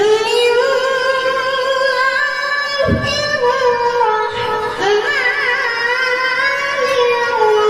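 A boy reciting the Quran in melodic tilawah style into a microphone, in a high, shrill voice. He holds long notes that waver in ornamented runs, with brief breaks about three and five seconds in.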